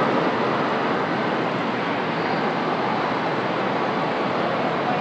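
Steel roller coaster car running along its track, heard as a steady noise blended with the general background din of a large indoor amusement park under a dome.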